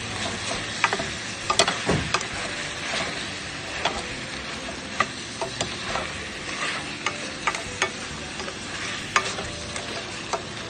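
Pork and chicken pieces sizzling in a stainless steel pan as they are stirred and turned with a spatula, the utensil clicking and scraping against the pan many times. The meat is being sautéed.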